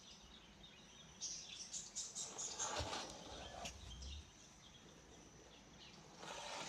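Domestic turkey toms in full strut making their low, deep drumming hum, a courtship display sound, for a couple of seconds from about a second and a half in, with a short thump near the middle.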